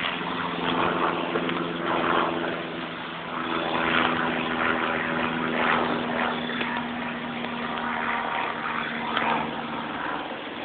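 A motor engine droning steadily, fading out near the end, under a gusty rushing noise.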